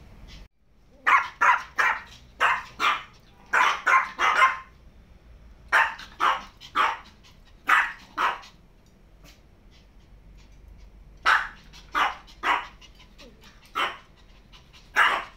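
Maltese dog barking repeatedly, in short bouts of two to four barks with pauses between.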